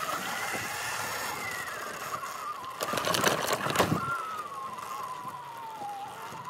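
Segway X260 electric dirt bike's motor whining, its pitch falling as the bike slows down, over tyre and wind noise. About three seconds in comes a short burst of rough rushing noise.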